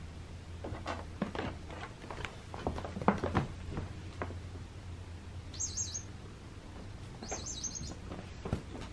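A few light taps and knocks in the first half, then two short bursts of high, quick bird-like chirping about a second and a half apart.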